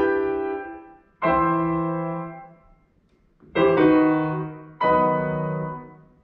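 Grand piano played solo: a few separate chords, each struck and left to ring and fade, with short silent pauses between them.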